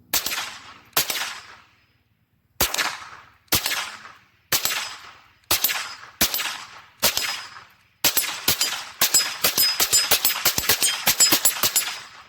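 Gunshots at a shooting range: eight shots about a second apart, then a fast string of rapid shots for about the last four seconds.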